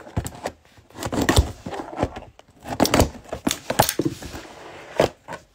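A cardboard trading-card box being handled and opened by hand: irregular bursts of rustling with sharp knocks and clicks, easing off briefly about two and a half seconds in.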